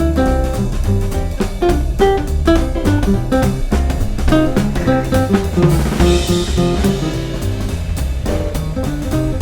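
Background music: jazzy instrumental with guitar, bass and drum kit keeping a steady beat.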